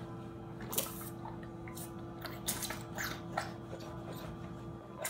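Liposuction cannula sucking fat through the suction tubing: irregular wet slurping and gurgling bursts over a steady low hum.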